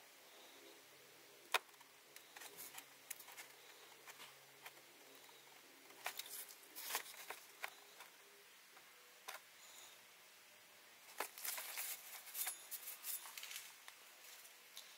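Faint plastic crackling and clicking in irregular clusters from a squeeze bottle being worked to push gear oil through a clear tube into the transfer case.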